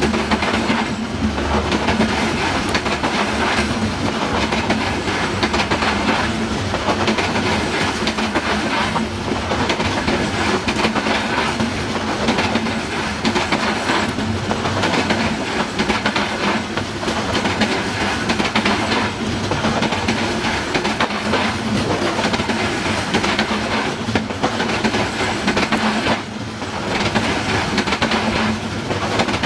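Humsafar Express passenger coaches running past on the adjacent track, their wheels clattering repeatedly over rail joints and points, with a steady low hum underneath.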